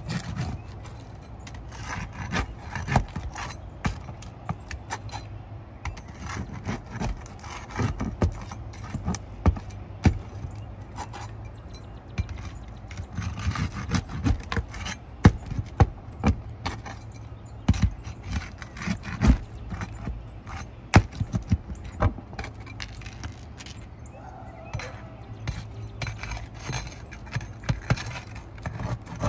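Hand tools working asphalt 3-tab shingles loose: irregular scrapes, clicks and knocks as shingles are pried up and nails pulled, over a steady low hum.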